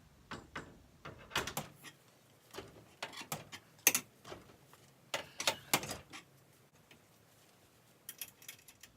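Sharp metallic clinks and taps from steel winding bars working in the winding cone of a garage door torsion spring while the spring is wound up in quarter turns. The clicks come in small irregular clusters every second or two.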